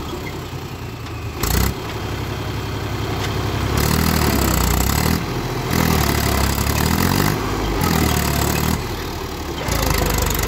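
Mahindra 265 DI tractor's three-cylinder diesel engine labouring under heavy load, revving up and easing off several times as it strains to pull an overloaded dumper trolley stuck in soft soil.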